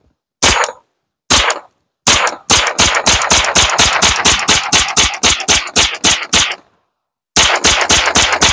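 Kalashnikov USA KR9 9mm direct-blowback carbine firing semi-automatic: a few single shots about a second apart, then a rapid string of about five shots a second for some four seconds, a short pause, and another quick string near the end.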